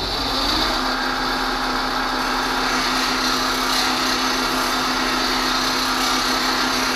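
Bench grinder running at full speed while a high-speed-steel plane iron is pressed to its coarse wheel, throwing sparks. It gives a steady motor tone under the hiss of steel being ground. This is the bevel being ground back toward the edge until the thin black line of the damaged, flattened edge is gone.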